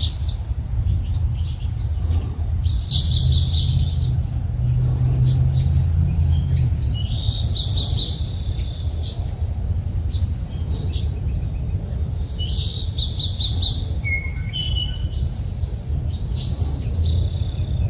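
Small birds chirping and singing in repeated short bursts and trills, with a few lower whistles about fourteen seconds in, over a steady low rumble.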